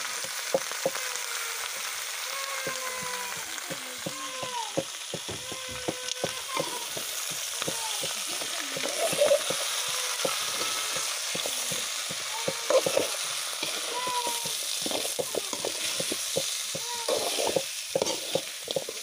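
Chicken pieces and spices sizzling in hot oil in a black iron kadai, with a steady hiss. A spatula is stirring them, scraping and knocking against the pan many times.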